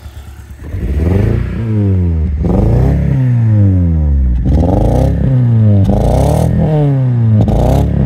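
Toyota Matrix XRS's 2ZZ four-cylinder engine, heard at the tailpipe, blipped up from idle about five times, each rev rising quickly and falling back more slowly. The engine has a cylinder one misfire.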